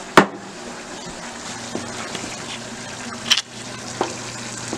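Chili simmering in a pot on a gas stove: a steady hiss with a low hum under it. A loud sharp knock comes just after the start, and two lighter knocks follow later as a wooden spoon goes into the pot to stir.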